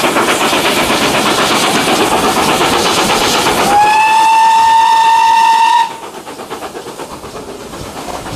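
Steam locomotive 7812, a GWR Manor class 4-6-0, working hard uphill with a loud, rapid, even exhaust beat. About four seconds in comes a single whistle blast lasting about two seconds, a steady note. After the whistle the sound drops suddenly and goes duller as the train runs into the tunnel.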